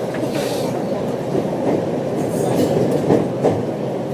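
Running noise heard inside a moving passenger train car: a steady rumble of wheels on the rails, with a few short clacks from the track.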